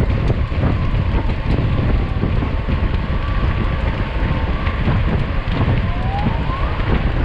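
Wind buffeting the microphone of a bike-mounted camera while a mountain bike rolls at speed, its tyres crackling over the trail surface in a steady, rumbling rush.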